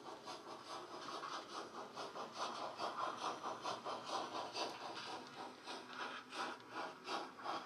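Model steam locomotive DCC sound decoder playing a steady, even beat of exhaust chuffs through the model's small speaker, from a Hornby LNER W1 'Hush Hush' running under load.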